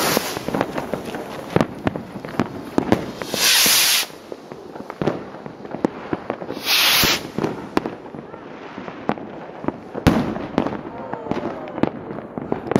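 Fireworks: scattered sharp pops and crackles, broken twice by a loud hiss lasting under a second, with a heavier bang about three-quarters of the way through.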